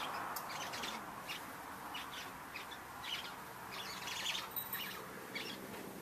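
Birds chirping: short high chirps coming irregularly, about one or two a second, with a longer run of them a little past four seconds in.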